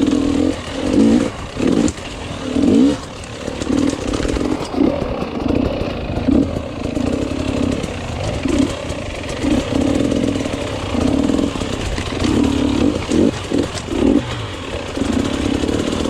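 Enduro motorcycle engine being ridden off-road, revving up and dropping back in short, irregular bursts as the throttle is opened and closed again and again.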